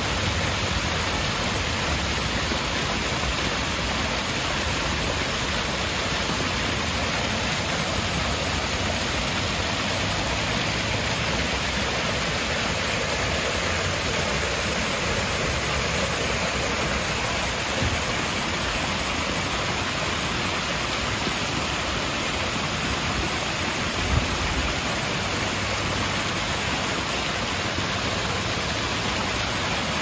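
Small waterfall cascading over rocks: a steady rush of falling, splashing water, with one brief low thump about two-thirds of the way through.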